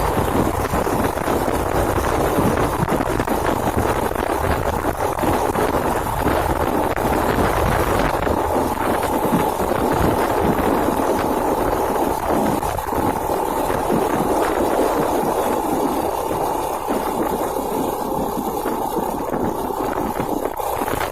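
Steady ride noise from a small SYM RV1-2 110cc motorcycle: the engine running with wind rushing over the microphone, easing slightly in the last few seconds.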